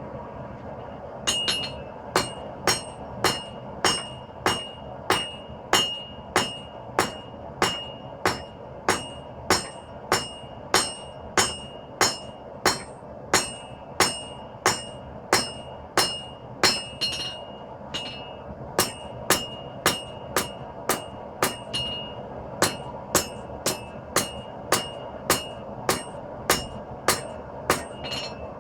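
Hand hammer striking hot 5160 spring steel on an anvil, evenly paced blows about three every two seconds, each with a bright ringing tone from the anvil, with a short break a little past halfway. Under it runs the steady noise of a propane gas forge.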